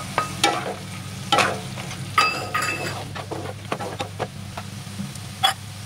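Roasted dry fruits tipped from a steel bowl into a nonstick frying pan of pineapple pulp sizzling in ghee, then a wooden spatula stirring and scraping the pan in repeated short strokes. A steady low hum runs underneath.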